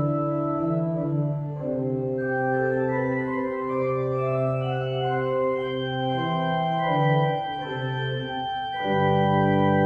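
Church organ playing slow, sustained chords over a moving bass line, with a fuller, deeper chord coming in near the end.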